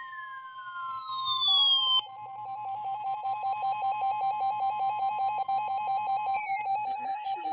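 Two electronic emergency alert signals sound at once. A steady, high weather-radio warning alarm tone runs under a loud falling tone that cuts off about two seconds in. A second, rapidly pulsing alert tone then starts and carries on alongside the steady tone, which stops near the end after a short falling chirp.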